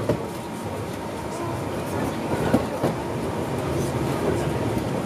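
Electric rack-railway train of the Montenvers line (Strub rack) running on its track, a steady rumble of wheels and rack gear, with a couple of sharp clicks about two and a half seconds in.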